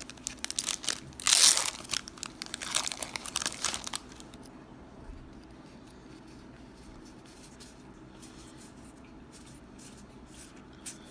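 Foil wrapper of a Magic: The Gathering Amonkhet booster pack being torn open and crinkled for about four seconds, loudest about a second and a half in. After that it goes quiet, with only faint scattered clicks.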